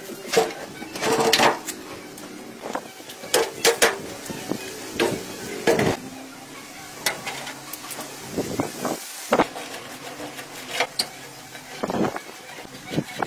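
Handwork on a derelict Mercedes-Benz sedan's rusted body: a plastic broom scrapes leaves and broken glass off the rear deck, then the trunk lock and lid are worked and opened. It comes as an irregular series of short scrapes, knocks and clunks, with longer scraping noises about a second in and near the end.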